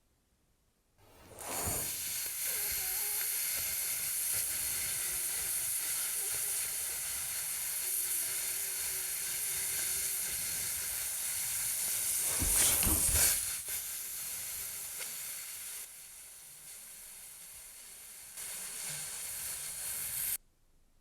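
A steady hiss, like steam or sizzling, starting about a second in. It surges louder once near the middle, drops quieter later, and cuts off suddenly shortly before the end.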